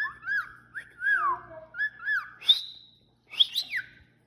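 Cockatiel whistling: a run of short whistled notes that rise and fall, then a few sharp high whistles sweeping downward near the end.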